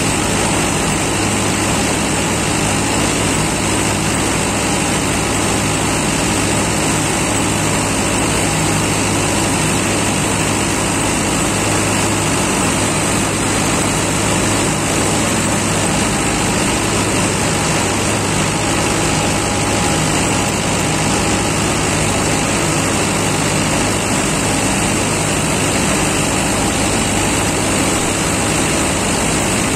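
Mahindra Novo tractor's engine running steadily under load while it drives a front-mounted crop reaper cutting standing straw.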